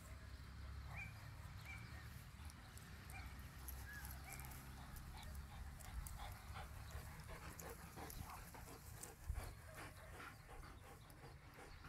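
Faint sounds of dogs playing on grass, with wind rumbling on the microphone; from about halfway a dog close by is panting in a quick, even rhythm.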